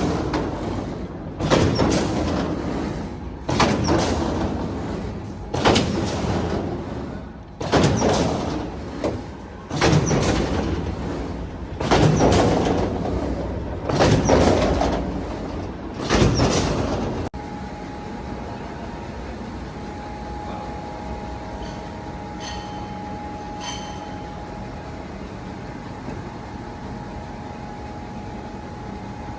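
Corrugated silo-panel production machinery at work: a loud, noisy working stroke repeats about every two seconds, eight times, each swelling and then dying away. After a sudden cut, the machinery runs with a steady hum and a high whine, with a few light ticks.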